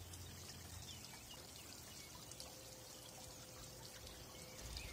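Faint, steady rushing and trickling of water flowing along a levada irrigation channel.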